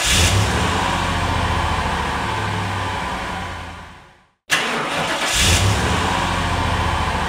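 Car engine starting and settling into a steady idle, which fades out about four seconds in. The start then plays again: a burst of cranking, the engine catching with a brief rev, then idling.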